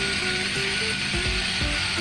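Background music: a melody of short notes over a beat about twice a second, with a steady hiss underneath.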